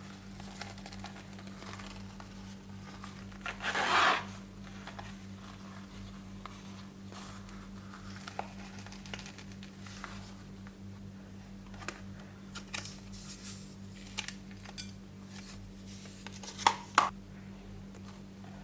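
Crunchy slime mixed with plastic-bag pieces being pressed and pulled, giving soft crinkling and crackling, with a louder crunch about four seconds in and two sharp clicks near the end. A steady low electrical hum runs underneath.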